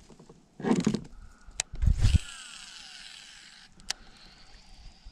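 Knocks and thumps of gear handled on a plastic fishing kayak, then a cast: a whirr of line running off a fishing reel that falls in pitch for about a second and a half, followed by a sharp click.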